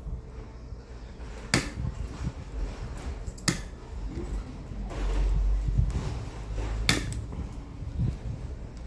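Three sharp metallic clicks, a couple of seconds apart, as steel cuticle nippers are worked on with small pliers, over a low steady rumble.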